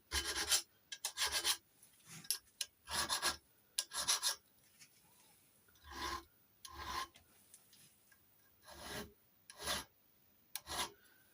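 Hand file rasping on a metal key blank in short, irregular strokes with pauses between them: cutting and cleaning up the key's bit while impressioning a lever lock.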